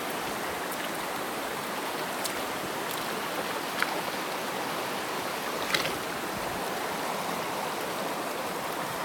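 A shallow stream rushing over rocks in a steady, even wash of water. A few sharp little clicks sit on top of it.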